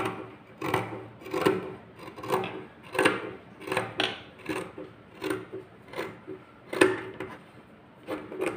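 Scissors cutting through folded cotton fabric: a steady run of about a dozen snips, one every half second or so.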